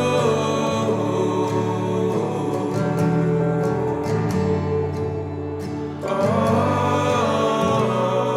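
Background music from a slow song, between sung lines, swelling louder about six seconds in.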